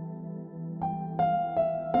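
Calm instrumental background music: a held chord, then four notes struck one after another in the second half, each ringing on.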